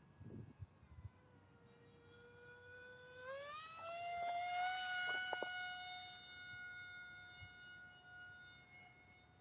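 Brushless electric motor (XING-E Pro 2207) spinning a three-blade 5x4.5 propeller on an RC plane in flight: a steady whine that rises in pitch and gets louder about three seconds in as the throttle opens. It then holds its pitch and slowly fades.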